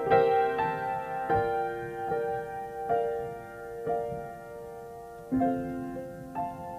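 Grand piano played slowly and softly: chords struck about once a second, each left ringing, with a firmer low chord a little past the middle.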